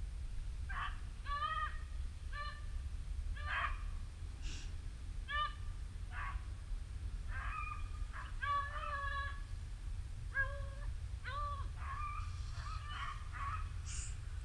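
Rabbit-hunting dogs baying on a chase: a long irregular string of short, pitched yelps, over a steady low rumble of wind.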